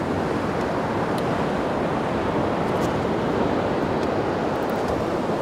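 Steady sea and surf noise mixed with wind rushing over the microphone, with a few faint ticks.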